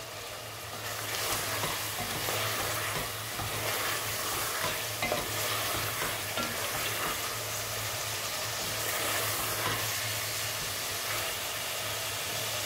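Chicken pieces and spices sizzling steadily as they fry in oil in a pot, with a wooden spatula stirring and scraping through them; the masala is being fried to cook off its raw taste.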